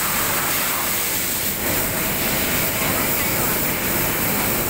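Steady, loud noise of factory machinery: an even rushing hiss and rumble with no pauses, a faint steady tone joining it about one and a half seconds in.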